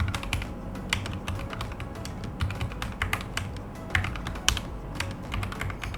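Fast typing on a Glorious GMMK 2 96% mechanical keyboard with Red linear switches: a quick, irregular run of soft key clacks, over background music.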